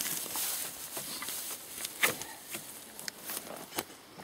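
Dry grass and turf rustling and crackling as it is trampled and handled, with scattered sharp crackles, the loudest about two seconds in.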